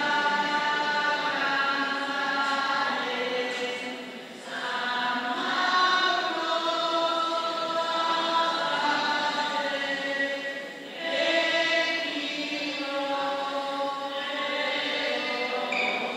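A group of voices singing a hymn together in long held phrases, with short breaks between phrases about four and eleven seconds in.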